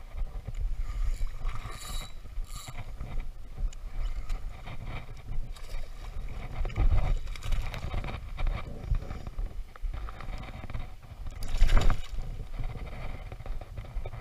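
Shallow water sloshing and splashing as a hooked snook thrashes at the surface beside a wading angler, with the loudest splash near the end.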